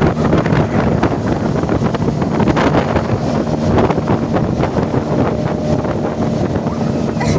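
Wind buffeting the microphone aboard a moving motorboat, with the boat's engine running steadily underneath as a low drone.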